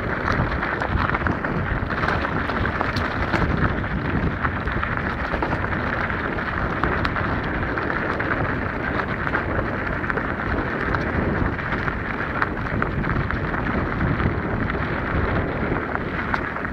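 Mountain bike riding over loose, rocky singletrack: a continuous crunching and rattling of tyres on gravel and stones, with many small knocks from the bike and its mounted camera.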